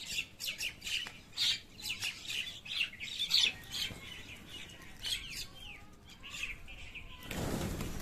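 A flock of mynas and crows calling with many short chirps and squawks, with wings flapping as the birds take off. A loud rush of noise near the end.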